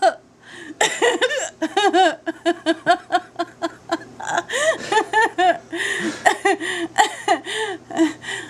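A woman laughing hard in quick repeated bursts, with breathy gasps between them.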